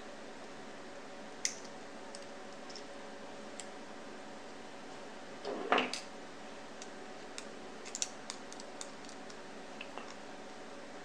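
Small clicks and taps of the metal and plastic parts of a limb-mounted bow clicker being handled and fitted back together, over a faint steady hum. A louder clattering knock comes about halfway through, followed by a few quick clicks as a folding multitool is picked up and opened.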